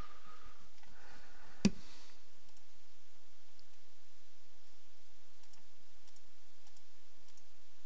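A single sharp computer mouse click a little under two seconds in, then a few faint clicks later on, over a steady low hiss.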